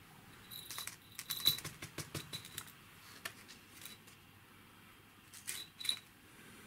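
Small metal parts of a sawn-open quartz rate sensor clicking and clattering on a tabletop as they are handled. A quick run of light clicks lasts about two seconds, then come a few single taps, and a last short cluster near the end.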